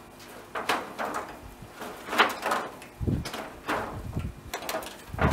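Sharp metallic clanks and scraping from sheet-metal roofing being worked loose at the eave, in irregular strokes about a second apart, with a heavy low thud about three seconds in.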